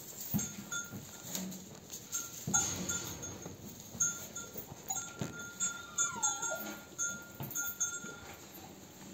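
A ewe and her suckling lamb in a straw-bedded pen, with the ewe pulling hay from a metal feeder. Irregular soft knocks and rustles run through it, over faint high tones that come and go, with one falling tone about six seconds in.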